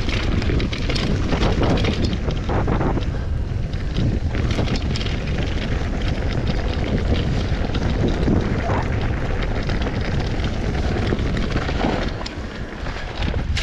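Wind buffeting an action camera's microphone during a fast mountain bike descent, a steady roar over the rattling knocks of the bike on a rough dirt trail, easing slightly near the end.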